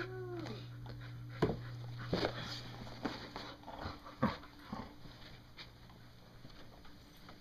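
Two golden retrievers tussling over a tennis ball: a short dog whine at the start, then scattered bumps and scuffles, over a steady low hum.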